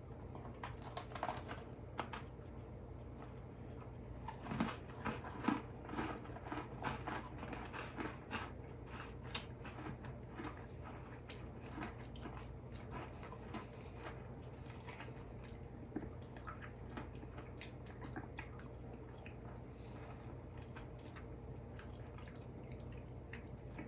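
Faint crisp crunches of people biting into and chewing Firework Oreo cookies, thickest about four to seven seconds in and scattered after that, over a steady low hum.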